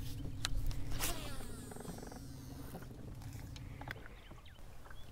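Baitcasting reel being cranked to retrieve a bladed jig, with a few sharp clicks and a brief sweep about a second in, over a steady low hum that stops about four seconds in.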